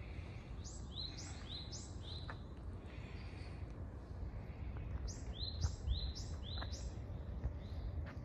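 A small songbird calling: two quick runs of five or six sharp, high notes, each sliding downward, over a low outdoor background hum.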